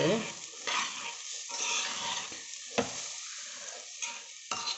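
A steel spoon stirring and scraping a dry mix of rice, dal and chopped vegetables in a pressure cooker, the mix frying and sizzling in the oil on low flame. Two sharp knocks of the spoon on the pot, one about three seconds in and one near the end.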